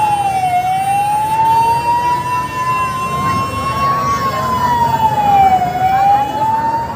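An emergency vehicle's siren wails in a slow cycle: its pitch drops quickly, then climbs back slowly, twice, about a second in and again near the end. The hubbub of a large street crowd runs beneath it.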